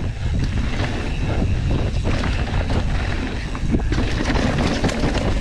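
Full-suspension mountain bike descending a rough trail at speed: tyres rumbling over dirt and rocks, with rapid clicks and knocks of the bike rattling over the bumps, and wind buffeting the body-mounted camera's microphone.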